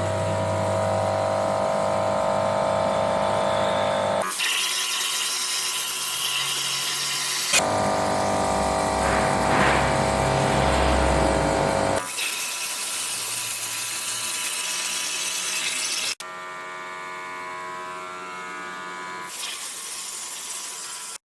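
Machine noise from a DIY CNC plasma cutting machine at work, in several clips joined with abrupt cuts: stretches of steady motor whine alternate with loud hissing.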